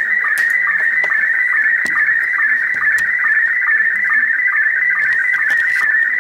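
Slow-scan television (SSTV) picture signal from a shortwave pirate station, received in upper sideband on an Icom communications receiver and heard through its speaker. It is a steady, fast-warbling high tone broken by short lower sync beeps in an even rhythm, with a few faint static clicks over it: the sound of an image being sent line by line.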